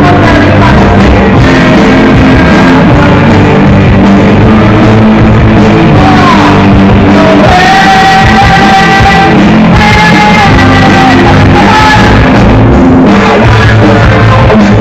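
Rock band playing live with electric guitars, bass and drums, a male vocalist singing long held notes through the middle.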